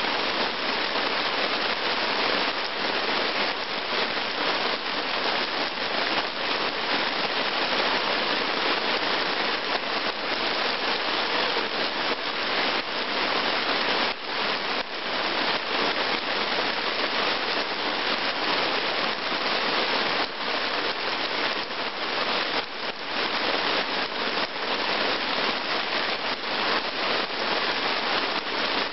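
Heavy rain falling steadily on wet ground and puddles, with many separate drop hits close by.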